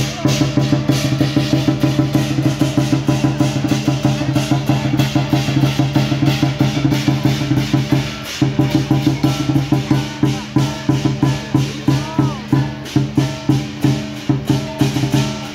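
Lion dance percussion: a large drum beaten in a fast, steady rhythm with clashing cymbals ringing over it, pausing briefly about eight seconds in.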